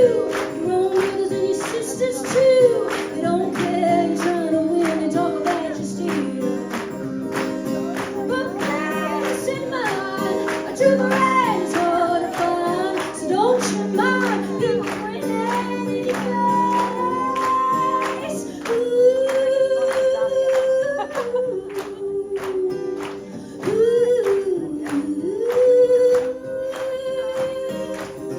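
A woman singing a gospel-blues song live, her voice bending and sliding over a steady percussive beat.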